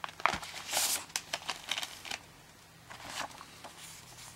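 A clear plastic multi-disc DVD case handled: a quick series of plastic clicks and rattles in the first couple of seconds, then paper rustling about three seconds in as the insert booklet is opened.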